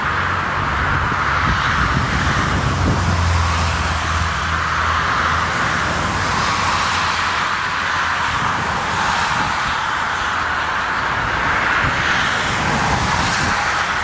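Twin turbofan engines of an Airbus A330 at takeoff thrust as the jet rolls down the runway and lifts off: a steady, loud jet-engine hiss, with a low hum in the first few seconds.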